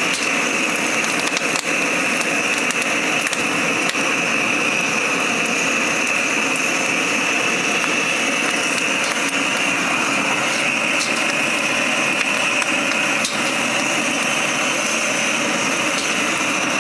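Propane burner of a drum-type vegetable and chile roaster firing steadily, a constant rushing flame noise, with a few faint clicks.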